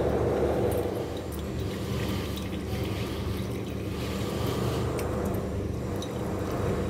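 A cloth bag of oil-soaked herb paste squeezed by hand, with soft squelching and herbal coconut oil dribbling into a bowl, over a steady low hum.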